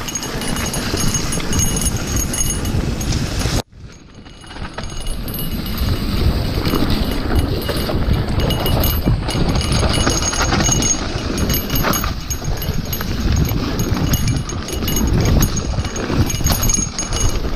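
Mountain bike riding fast down a wet dirt trail: a steady rush of wind noise and tyre noise on the handlebar-mounted camera, with the bike knocking and rattling over bumps. The sound cuts out abruptly a few seconds in, then builds back up.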